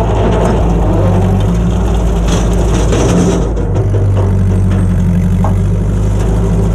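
Ford 8N tractor's four-cylinder flathead engine running steadily under load, driving a rotary brush hog (Woods Dixie Cutter) through the PTO as it cuts through brush and tall weeds. A few brief sharp ticks sound over the steady hum.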